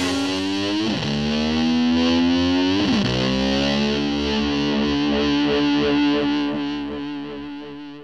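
Hard rock song ending on distorted electric guitar holding ringing notes, with two quick slides in pitch, then fading out over the last couple of seconds.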